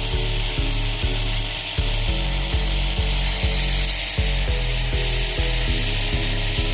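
Steady hiss of a cordless pressure washer's water jet, over background music with a steady beat.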